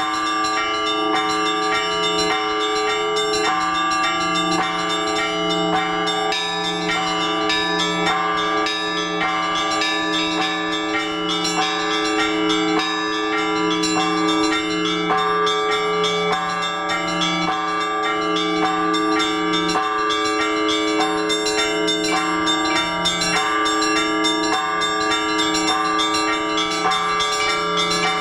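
Orthodox church bells rung together in a continuous peal: a low bell struck about once a second under quicker, overlapping strikes of several smaller bells, all ringing on.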